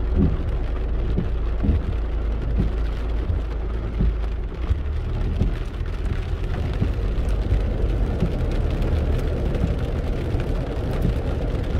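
Heavy rain hitting a car's roof and windshield, heard from inside the cabin, over the steady low rumble of the car moving along a wet street, with many short irregular knocks.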